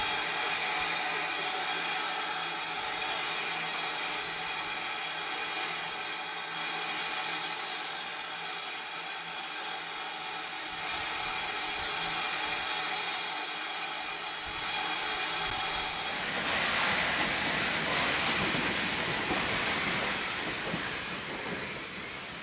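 Steam hissing from a steam locomotive, steady with a ringing, whistle-like tone in it. About sixteen seconds in, a louder, rougher rush of steam takes over for several seconds before easing.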